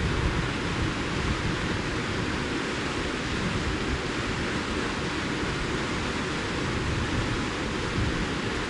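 Wind blowing across the microphone: a steady rushing hiss with an unsteady low rumble underneath.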